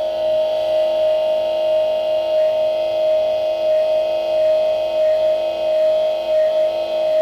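Ambient background music: a steady drone held on one note throughout.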